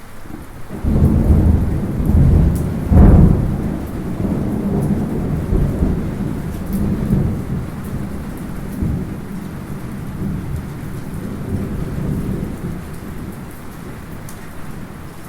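A thunder rumble over steady light rain: it starts about a second in, swells to its loudest crack around three seconds, then rolls on and slowly dies away. Faint small drips tick now and then over the rain's patter.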